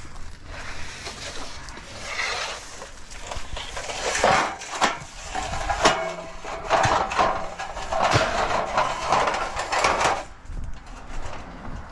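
Pieces of scrap metal being picked up and thrown together: a busy run of clanks, knocks and scraping, with short metallic rings, starting about two seconds in and stopping shortly before the end.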